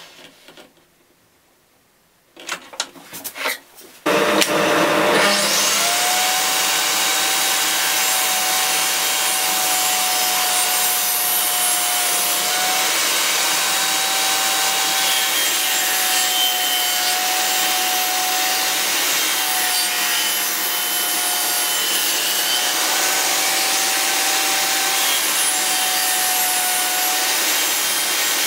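A few knocks, then a table saw starts about four seconds in and runs steadily, ripping a pine strip along the fence. A steady whine from the blade shifts slightly in pitch now and then as the wood feeds through.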